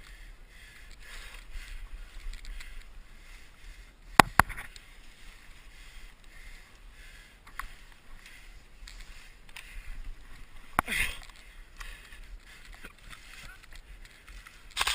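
Sharp snaps of airsoft gunfire: two in quick succession about four seconds in, and more later on, over soft rustling of a player moving.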